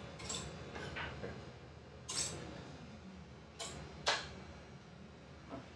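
Faint, scattered clicks and knocks of kitchen utensils and containers being handled and set down on the counter, the two clearest about two and four seconds in.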